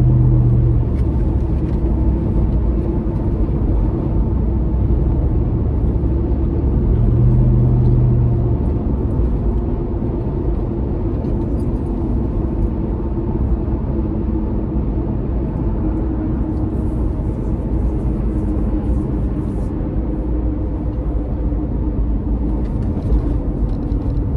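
Toyota 4.7-litre V8 with a Magnaflow Overland stainless cat-back exhaust, heard from inside the cabin on the move: a steady low exhaust grumble under road noise. The exhaust note swells briefly at the start and again about seven seconds in.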